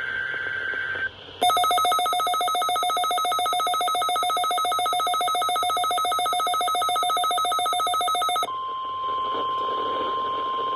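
NOAA Weather Radio alert tones: a buzzy SAME digital header burst ends about a second in. A fast-pulsing, ringing electronic alert tone follows for about seven seconds, then gives way to the steady single-pitch 1050 Hz weather radio warning alarm tone.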